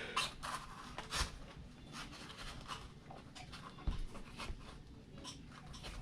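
Quiet handling sounds of a rubber RC truck tire and wheel being worked by hand: scattered small clicks, taps and rustles.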